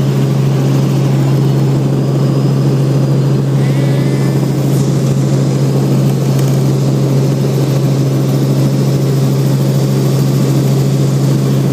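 Helicopter cabin noise in flight: a steady, loud engine-and-rotor drone dominated by a constant low hum.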